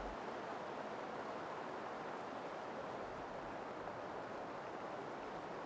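Steady, faint ambient noise: an even hiss with no distinct events.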